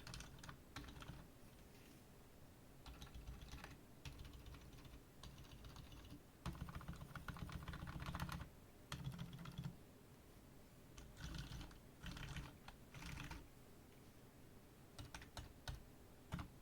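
Typing on a Keychron K4 V2 mechanical keyboard with lubed Outemu Silent Gray switches, a steel plate and case and plate foam: quiet keystrokes in bursts of rapid clicks, separated by short pauses.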